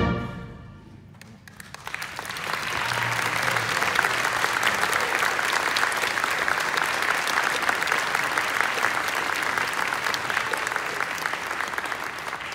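Audience applause in a large hall after a concert band's final chord: the chord's last ring dies away in the first second, then clapping breaks out, builds within about a second and holds steady.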